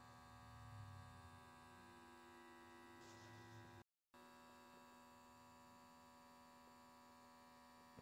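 Near silence with a faint, steady electrical hum.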